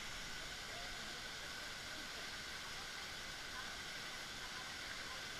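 A waterfall pouring into a pond, giving a steady, even rush of falling water.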